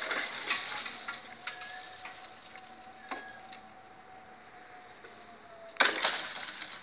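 Level-crossing barriers lowering, with a faint steady whine from the crossing equipment. Two loud rushes of noise come at the start and again near the end, with a few light clicks between.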